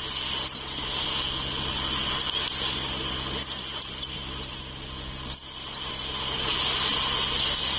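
Steady high chorus of insects, with a few short high chirps about three to five seconds in, over a low steady hum.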